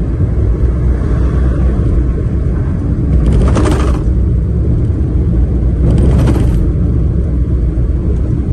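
Steady low rumble of road and engine noise from a vehicle travelling along a highway. Two brief rushes of hiss rise over it, about three and a half and six seconds in.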